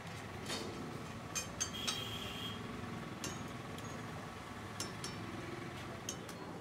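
Steel utensils clinking against metal woks: a handful of sharp, scattered clinks, one around two seconds in ringing briefly. They sit over a steady low background noise.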